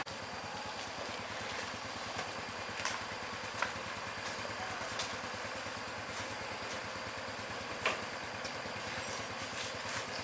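A motorbike engine running steadily, with a few short sharp clicks over it.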